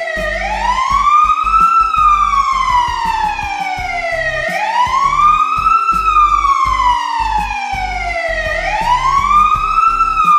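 Siren wailing in a repeating cycle: the pitch sweeps up quickly, then falls slowly, about three times, each cycle a little over four seconds long.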